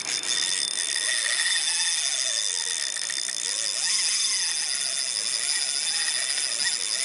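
Drag of a Shimano Ci4 spinning reel screaming in a steady high-pitched whine as a hooked fish runs and strips line off the spool.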